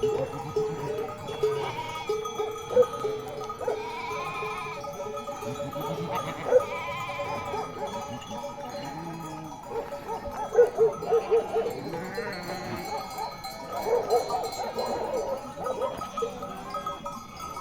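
A flock of sheep bleating, many short calls overlapping, with a quick run of calls about two-thirds of the way through.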